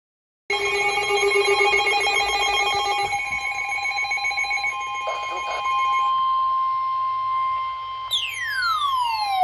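Weather radio alert tones: a loud chord of steady electronic tones. Some of them drop out about three and six seconds in, leaving a single held tone of about 1 kHz, typical of the NOAA Weather Radio warning alarm that comes before a warning message. Near the end a falling, whistle-like sweep slides down over it.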